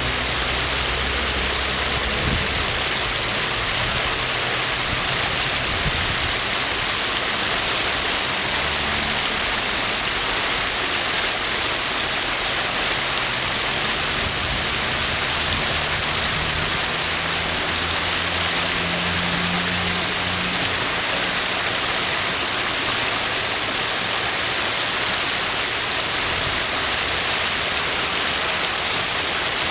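Shallow creek water running over rocks: a steady, even rush.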